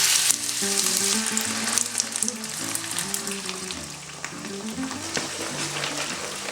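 Pasta sizzling in a frying pan as it cooks risotto-style in oil and added water, loudest at the start and easing off, with light clicks of stirring. Background music plays underneath.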